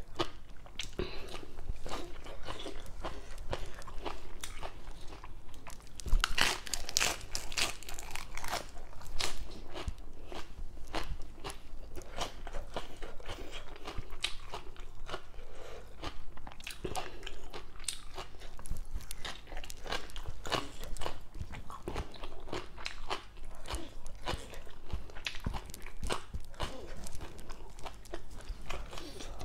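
A person chewing and crunching mouthfuls of green papaya salad and crisp raw vegetables, a steady run of short crunches with no pause, loudest about six to nine seconds in.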